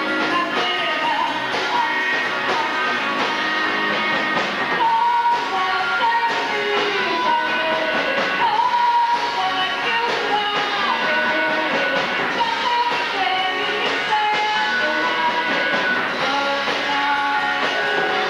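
A woman singing a rock song live into a handheld microphone, backed by a band with electric guitar and drums.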